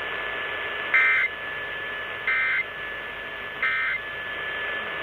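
Emergency Alert System end-of-message signal over AM radio: three short bursts of warbling digital data tones, about 1.3 seconds apart. A steady faint whistle and hiss from AM reception run beneath them.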